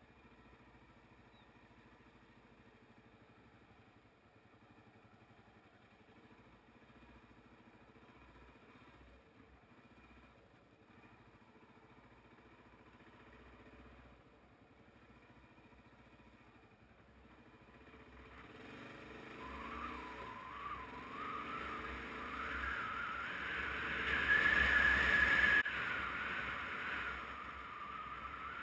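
Motorcycle engine heard from the rider's seat, running quietly at low speed, then from about two-thirds of the way in picking up speed: a wavering whine and rushing wind noise build up to their loudest shortly before the end.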